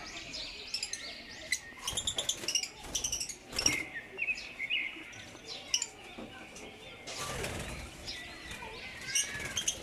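A group of African lovebirds chirping, with many short, high, overlapping calls that come in bunches, mixed with a few sharp clicks and a brief rustle of wings about seven seconds in.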